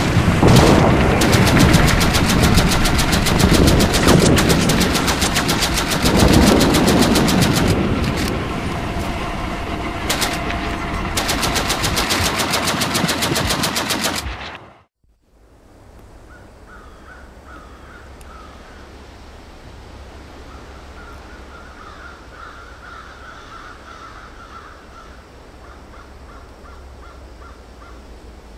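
Battle sound effect of rapid machine-gun fire mixed with other gunshots, cutting off abruptly about fourteen seconds in. It is followed by quiet outdoor ambience with birds chirping.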